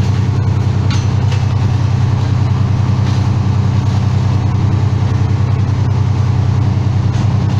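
A motor vehicle's engine idling steadily with a low, even hum.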